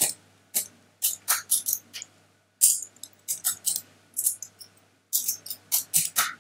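Typing on a computer keyboard: quick runs of key clicks separated by short pauses.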